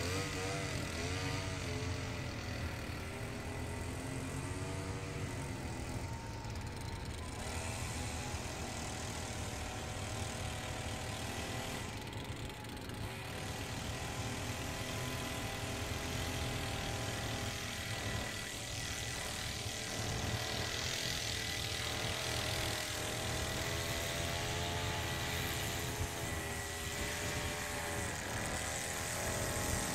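Small gas engine of a handheld lawn trimmer running at a distance, its pitch rising and falling as it is throttled up and down while trimming along the sidewalk edge.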